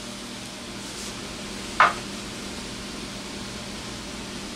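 Steady workshop background hum, with a single short, sharp knock about two seconds in.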